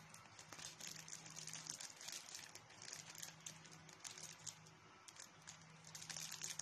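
Faint crinkling of a cellophane-wrapped packet being handled and turned over in the hands, with a faint low hum underneath.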